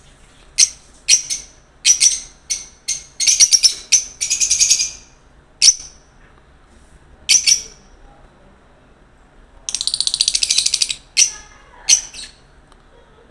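Lovebirds calling: a string of sharp, high-pitched chirps, broken by two longer rapid chattering trills, one about four seconds in and another near ten seconds.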